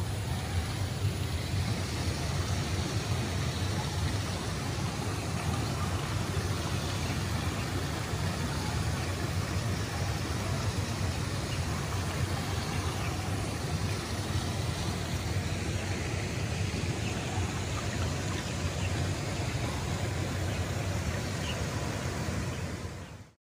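Steady rushing noise with a low rumble underneath, unbroken until it fades out quickly near the end.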